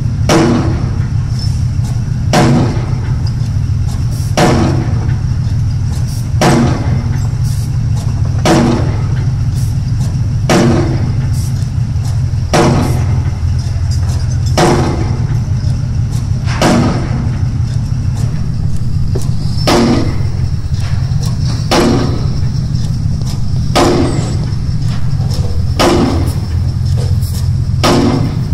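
Bruce SGH-0312 hydraulic impact pile hammer striking a square concrete pile about once every two seconds, each heavy blow followed by a short ring. A steady low drone from the excavator's engine runs underneath.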